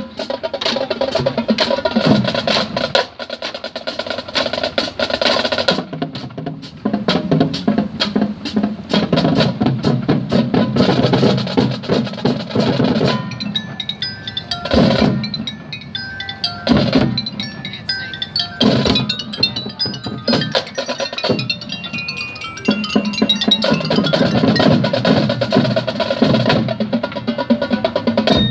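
High school marching band playing: full winds and drums together, with a softer passage in the middle where percussion and scattered high mallet notes carry the music before the full band comes back in.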